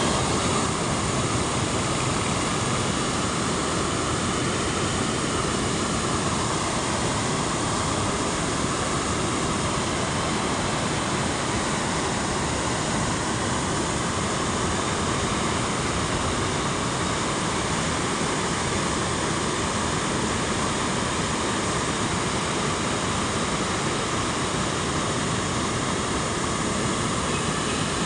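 River floodwater pouring over a concrete weir in a steady rush of foaming whitewater, running high with water released from the KRS dam upstream.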